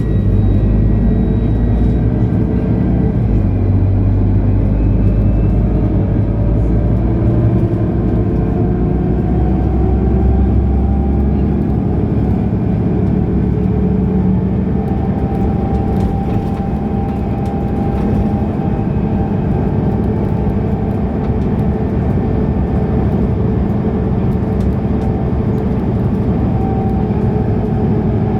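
Mercedes-Benz O530 Citaro bus under way, its diesel engine and drivetrain running with a steady low drone. A whine rises in pitch through the first half and then holds steady as the bus gathers speed and cruises.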